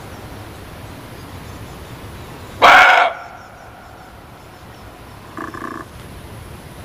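Muntjac (barking deer) giving one loud, short bark about two and a half seconds in, then a fainter, shorter call near the end, over a steady background hiss.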